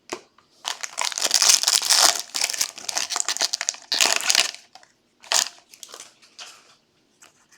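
Trading-card packaging crinkling and being crumpled by hand, in a dense run of crackles for about four seconds, then a short burst and a few faint crackles.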